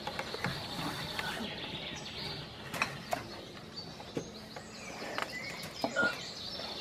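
Birds chirping in the trees, with a few short clicks and knocks from the rope and wooden pulley of a basket hoist as the basket is hauled up.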